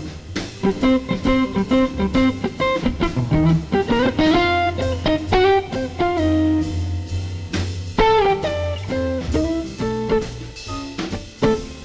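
Live jazz quartet of guitar, piano, double bass and drums playing a bop tune. Guitar is prominent, with quick runs of notes over a steady bass line and drums.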